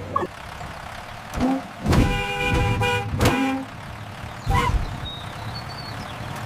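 Bus sound effects: a horn honks for about a second, about two seconds in, among a few short thumps and blips.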